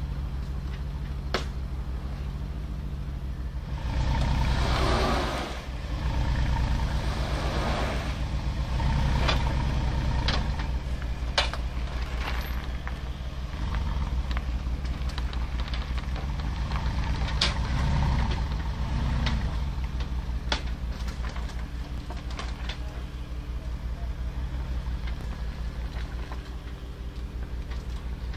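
Mercedes-Benz G500 4x4²'s twin-turbo V8 running at low revs as the truck crawls over steel articulation ramps, getting louder three times as it pulls over them. Sharp clicks and clanks from the steel ramps are scattered through.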